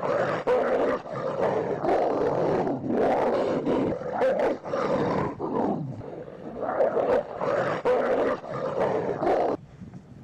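A large dog growling steadily through rough wrestling play, rising and falling, and stopping near the end.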